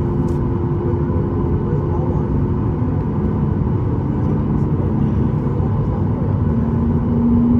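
Cabin noise inside a Boeing 737-9 MAX at takeoff: its CFM LEAP-1B engines run at high thrust as a loud, steady rumble. A humming tone on top rises slightly in pitch and grows louder near the end.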